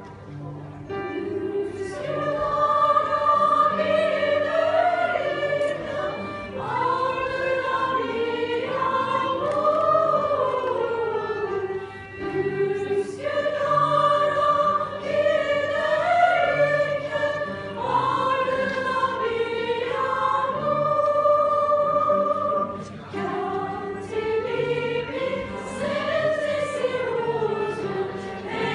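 Choir singing a slow song in phrases of long held notes, the phrases breaking off briefly every five or six seconds. The singing comes in about two seconds in.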